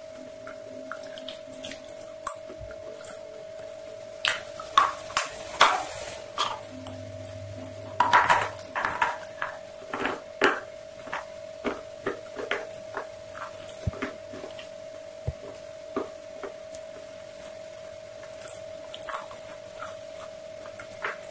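Close-up crunching and chewing of crispy fried chicken in irregular bites, loudest and densest about four to six seconds and eight to ten seconds in, over a steady tone.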